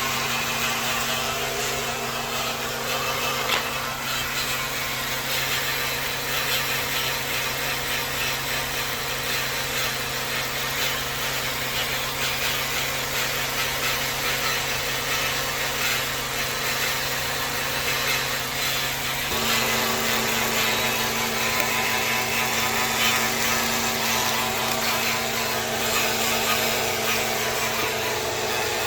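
2007 Nissan Maxima running with a steady whine from its CVT automatic transmission, a sound the inspector links to a transmission fault, with stored codes including low transmission fluid pressure and a CVT step motor fault. The steady tones shift and one grows stronger about two-thirds of the way through.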